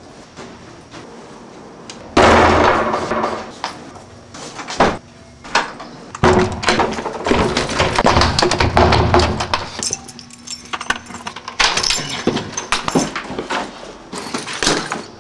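Clattering: a busy run of sharp knocks and rattles with noisy stretches, starting about two seconds in.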